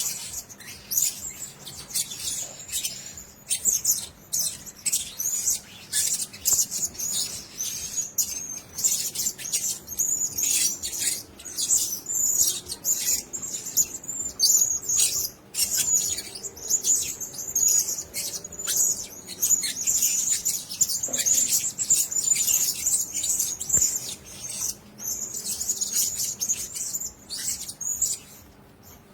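Blue-crowned hanging parrots chirping: a continuous stream of rapid, high-pitched squeaky calls.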